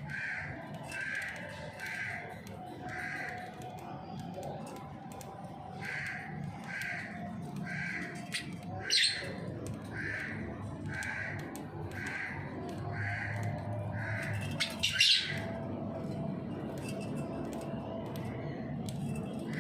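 Budgerigars calling: a short chirp repeated about twice a second, broken by two loud, sharp squawks, one about nine seconds in and one near the end.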